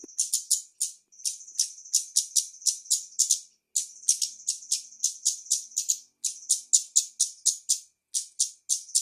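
Female flowerpecker (kemade) giving its 'konslet' call: a rapid, rattling string of high, sharp notes at about five or six a second, in runs broken by short pauses.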